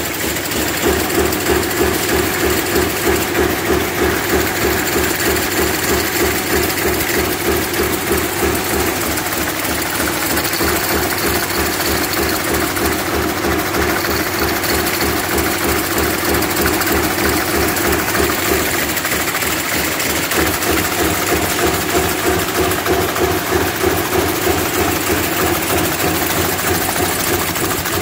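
Double aerosol-can-bottom production line running at speed, 400 bottoms a minute on each of its two lines: a continuous mechanical hum with a fast, even beat from the press and conveyors.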